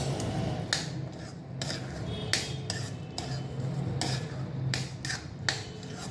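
A spoon scraping and clinking against an aluminium kadai as thick pongal is stirred, in repeated short strokes about one or two a second, over a steady low hum.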